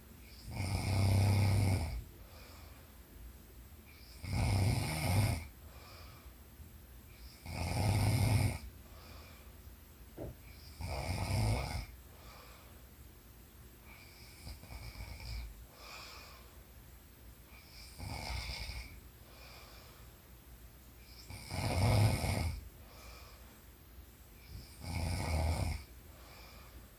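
A sleeping woman snoring, about eight snores spaced roughly three and a half seconds apart, a few of them fainter than the rest.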